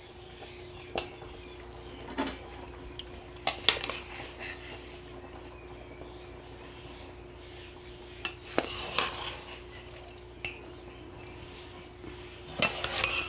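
Irregular metal clinks and knocks of utensils and vessels against a large aluminium cooking pot as soaked rice is added to the chicken biryani masala, with a bunch of knocks near the end. A faint steady hum runs underneath.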